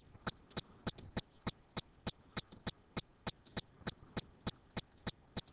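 Faint, evenly spaced clicks, about three a second.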